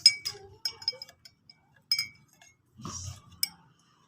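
About half a dozen light, sharp clinks of a small hard object, each ringing briefly at the same pitch, with a short low throaty sound about three seconds in.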